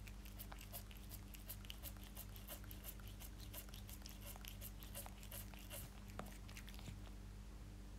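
A cat licking and eating fish off a wooden tabletop: a quick, uneven run of small wet licking and chewing clicks, several a second.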